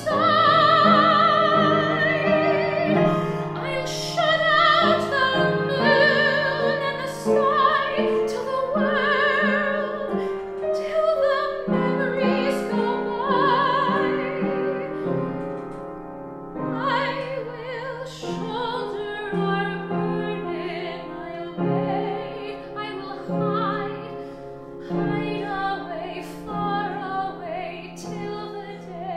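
A woman singing a musical-theatre ballad of grief in a sustained, vibrato-rich voice, with instrumental accompaniment.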